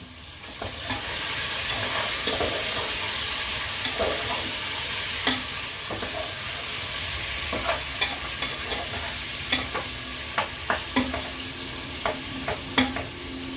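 Chicken feet and chicken breast sizzling in a hot pot, with scattered sharp knocks of a utensil against the pot.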